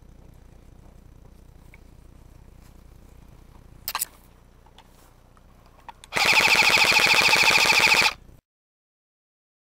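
Airsoft electric gun firing a short burst, then a loud two-second full-auto burst of rapid, evenly spaced shots that stops abruptly.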